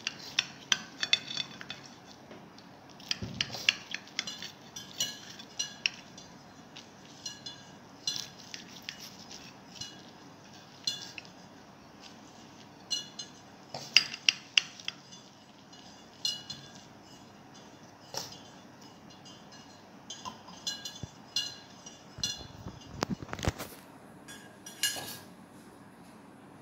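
Edge of a white spatula cutting through an omelette onto a glass plate: sharp clinks and taps against the glass in irregular clusters, with a duller knock near the end.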